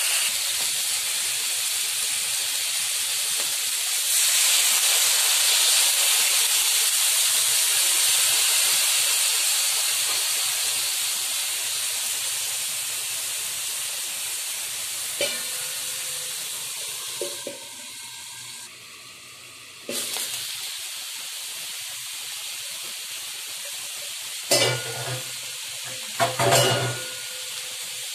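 Chicken breast with carrot and ginger sizzling in a hot wok, a steady hiss that grows louder about four seconds in and then slowly fades. A few knocks and scrapes of the food being stirred in the wok come in the second half.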